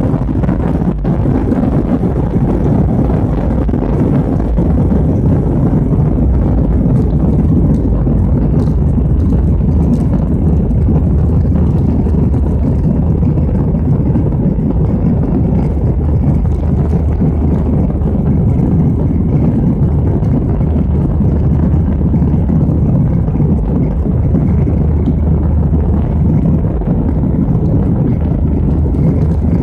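Jet airliner's engines at takeoff and climb power, heard inside the passenger cabin: a steady, loud, deep rumble with a rush of air.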